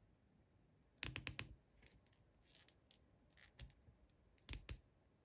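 A few sharp clicks and taps of hard objects: a quick run of about five about a second in, a few lighter scattered ones, then a close pair near the end.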